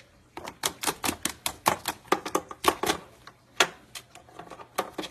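A parrot's beak biting and chewing at a cord, making a rapid, irregular run of sharp clicks.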